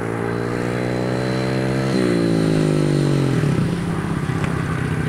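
Small youth dirt bike engine approaching, its note rising steadily as it accelerates. About two seconds in the rider lets off the throttle and the pitch falls away, settling to a steady idle near the end as the bike stops.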